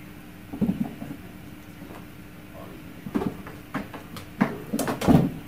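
A series of dull knocks and thumps, about six spread over the few seconds, the loudest near the end, over a steady faint hum.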